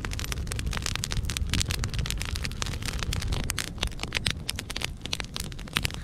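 Wood campfire of dry branches burning briskly, crackling and popping densely over a low steady rumble.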